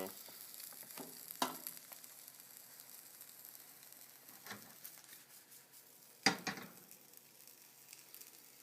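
A flipped omelette sizzling faintly in a non-stick skillet as its second side cooks, with two sharp knocks, about a second and a half in and again near six seconds.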